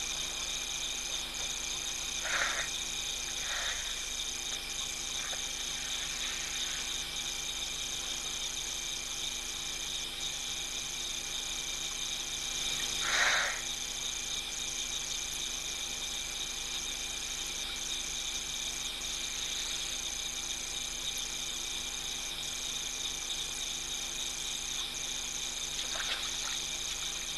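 Steady night chorus of crickets and other insects: several high trills held without a break. A few short, unidentified sounds break through, the loudest about halfway through.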